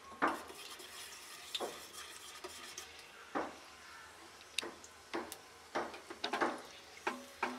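Metal spoon clinking and scraping against a small stainless steel tadka pan in irregular sharp knocks, over a faint sizzle of cumin seeds frying in hot oil.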